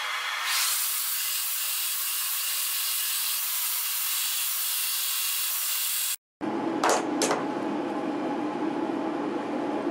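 Belt grinder's abrasive belt rough-grinding a Raffir stabilized poplar burl knife-handle block, a steady hiss that grows stronger about half a second in as the block is pressed to the belt. It cuts off abruptly about six seconds in and gives way to a duller rustle with two quick clicks.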